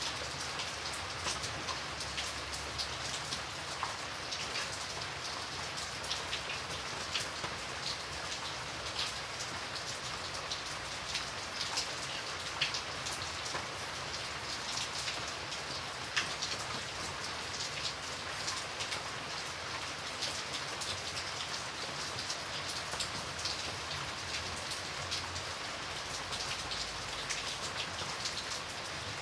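Light rain falling steadily, a soft even hiss with many scattered drops ticking on a surface.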